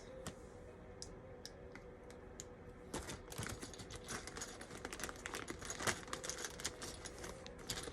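Faint, irregular small plastic clicks and taps of Lego pieces being handled and pressed together.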